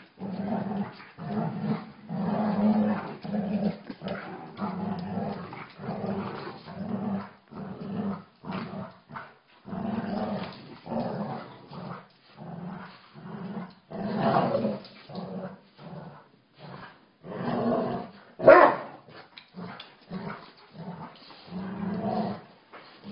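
A boxer puppy and a labrador play-fighting, with repeated short bouts of growling one after another and one louder, sharp bark about three quarters of the way through.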